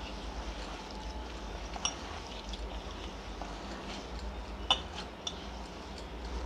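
A hand kneading and squeezing soft paneer kofta dough in a stainless steel bowl, with a few sharp clinks as the hand and bangles knock the bowl, the loudest about four and a half seconds in.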